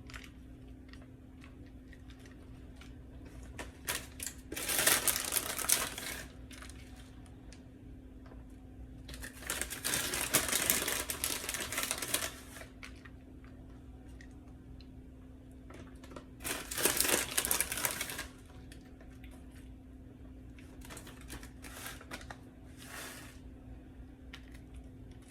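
Plastic bag of pre-shredded cheese crinkling in three rustling bursts of a second or two each as the cheese is shaken out over the dish, with a few light ticks between, over a steady low hum.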